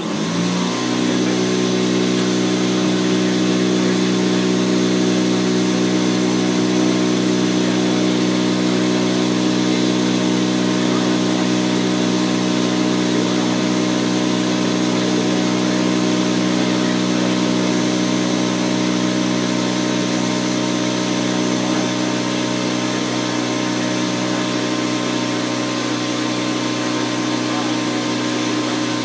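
A motor spins up over about half a second, then runs at one steady pitch with an even hum: the air-powered sanding setup, the pneumatic sander or the air compressor feeding it.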